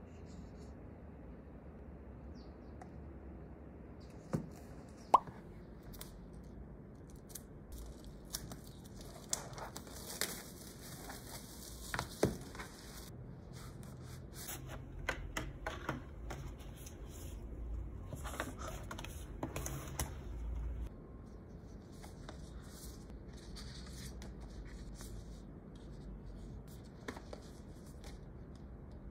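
Manga paperbacks being handled: pages flipped and riffled, with paper rustling and a few sharp taps as the books are moved and set down on the desk.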